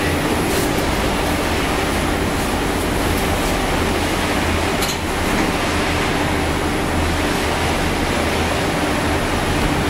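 Steady droning rumble and hiss of a car ferry's machinery on the vehicle deck while under way, with a low hum under it. A faint short click about five seconds in.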